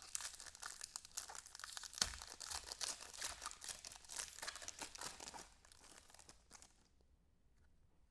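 Foil trading-card pack wrappers crinkling and tearing by hand: a dense crackle that stops about seven seconds in.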